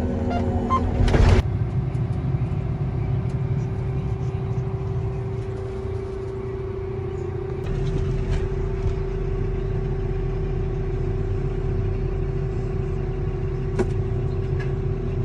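Soybean combine harvester running steadily: a constant low rumble with a steady hum over it. There is a short loud noise about a second in, and the low rumble grows a little heavier about eight seconds in.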